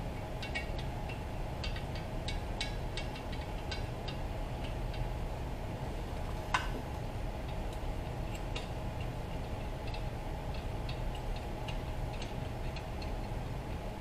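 Head bolts being threaded by hand into an engine block with the cylinder head held down: scattered light metallic clicks and ticks, one sharper click about six and a half seconds in, over a steady background hum.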